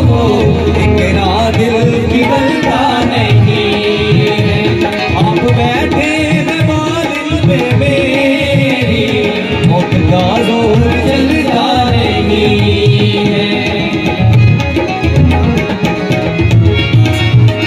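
Live tabla drumming in a dense, steady rhythm, with harmonium and acoustic guitar and male singing at times.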